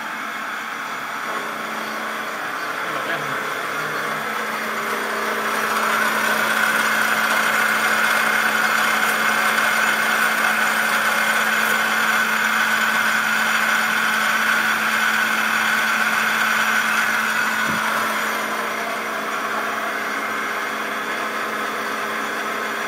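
Manual milling machine converted to CNC, its spindle running and the cutter machining metal: a steady low hum under a higher steady tone that grows louder about six seconds in and eases back around eighteen seconds.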